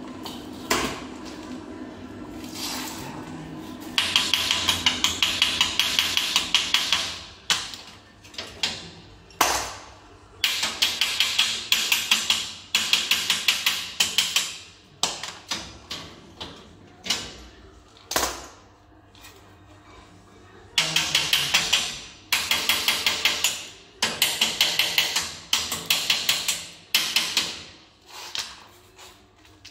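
An old transformer arc welder's arc crackling and sputtering as steel bars are welded on. It comes in short runs of about one to three seconds, stopping and restarting roughly a dozen times with brief pauses between welds.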